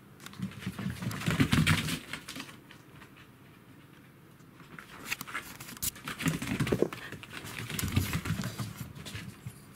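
A Pembroke Welsh corgi and a kitten at play, their paws and claws scrabbling and clicking on the floor in two bouts of rapid patter, about half a second in and again from about five seconds in.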